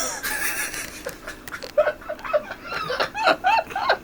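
A person laughing, a quick run of short chuckles starting about a second in, after a brief rush of noise at the start.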